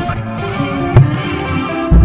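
Background music: held notes that change every fraction of a second over low percussive thumps, with a sharp knock about halfway through.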